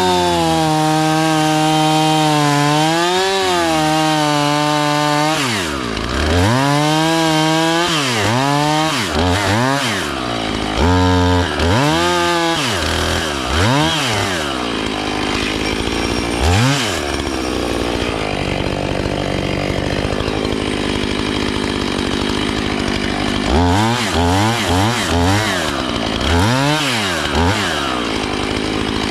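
A two-stroke gasoline chainsaw running at high revs for about five seconds, then revved up and down again and again in short blips, dropping back lower between them.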